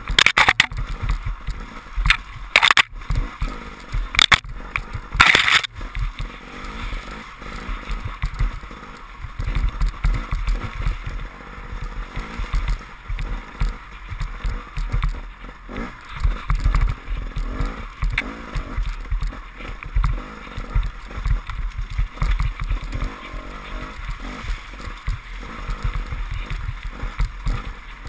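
KTM enduro motorcycle ridden over a muddy forest trail: engine and wind rumble on the microphone, rising and falling unevenly, with tyres working through mud and puddles. Several sharp knocks in the first six seconds as the bike hits bumps.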